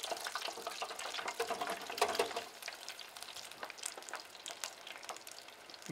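Freshly dropped homemade french fries frying in the hot oil of a twin-basket electric deep fryer: a dense crackling sizzle of many small pops over a steady hiss. It is louder for the first couple of seconds, then drops to a quieter sizzle.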